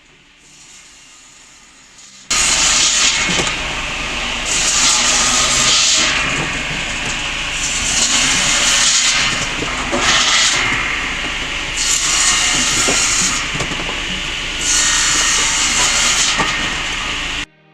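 Firewood circular saw cutting through logs: loud, harsh sawing starts suddenly about two seconds in, its high hiss swelling with each cut about every two seconds, and stops abruptly near the end.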